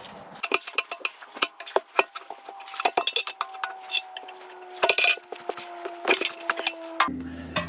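Steel tools clinking and knocking against metal in quick light strikes, while a struck steel part keeps ringing with a steady tone that sags slightly in pitch and cuts off suddenly about seven seconds in.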